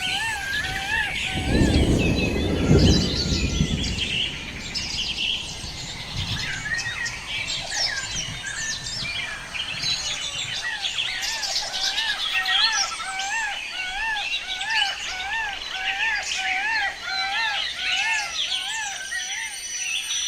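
Forest birds calling: one bird repeats short arched notes several times a second over a dense chorus of high chirps. Its series breaks off for a few seconds and starts again. A loud low rumbling noise comes about two seconds in.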